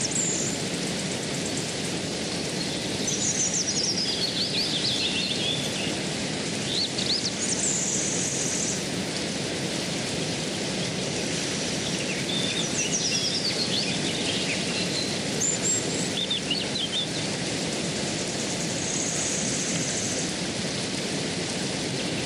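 A stream flowing steadily, with birds calling in short runs of high chirps and trills every few seconds.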